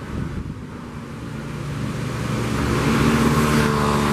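Motorcycle engines running at the railway level crossing, growing louder as they come close.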